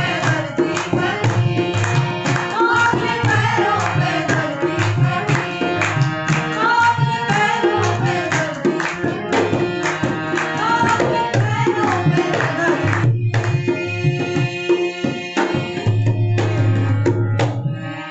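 Devotional bhajan played on harmonium and dholak, with singing voices over a fast dholak rhythm. About thirteen seconds in, the singing stops and the drumming thins out, leaving held harmonium tones as the piece winds down.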